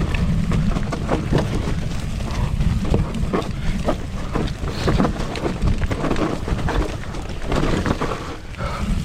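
Heavy wind rumble on the microphone with frequent irregular knocks and clatter from a mountain bike rattling over rough dirt trail.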